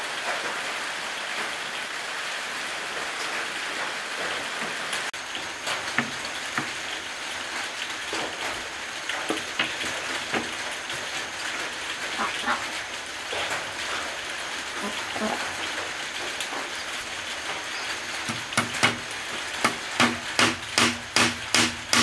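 Light knocks of wooden slats being set onto a wooden shelf frame, then near the end a hammer driving nails into the slats at about two strikes a second, each strike ringing briefly. A steady hiss runs underneath.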